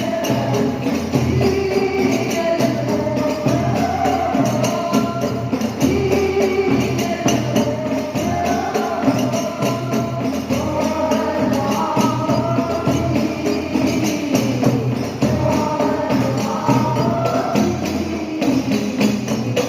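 A group of women singing an Arabic sholawat together, accompanied by hadroh frame drums (rebana) with jingles beating a steady, busy rhythm.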